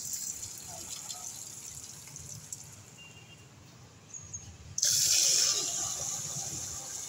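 Water from an outdoor tap running into a steel pot. It starts suddenly about five seconds in and then grows gradually quieter.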